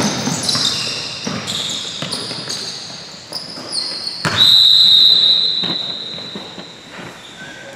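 Sneakers squeaking on a hardwood gym floor and a basketball bouncing during play. About four seconds in, a referee's whistle blows one long blast, the loudest sound, signalling a stop in play.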